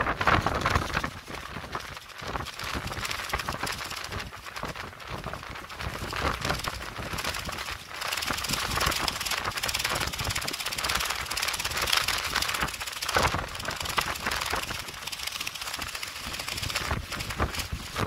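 Strong gusty wind on the microphone, with the clear plastic sheeting of a tent flapping and crackling fast and irregularly in the gusts.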